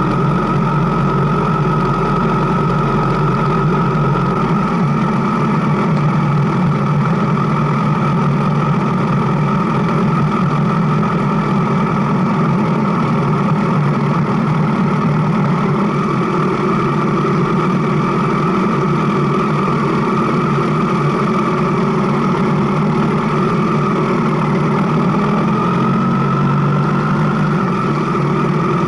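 Motorcycle engine running steadily at an even pitch, with a slight rise and fall in pitch near the end.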